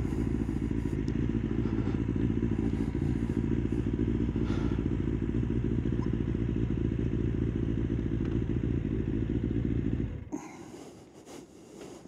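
Kawasaki ZX-9R's inline-four engine running steadily as the bike rolls slowly, then switched off about ten seconds in, the sound cutting out suddenly. A few small clicks and knocks follow.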